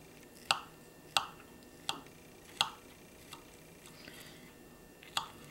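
Knife and fork clinking against a china plate while cutting through a pork chop: four sharp clicks about two-thirds of a second apart, a faint one, then one more near the end.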